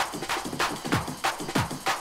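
Electronic hardcore track from a vinyl record in a sparse percussion passage: drum hits about three a second, some of them sliding down in pitch, with no steady kick drum.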